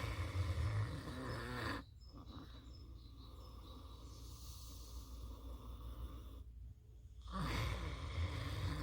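A pig snoring in its sleep: a loud, low, rasping snore at the start, quieter breathing, then another snore starting about seven seconds in.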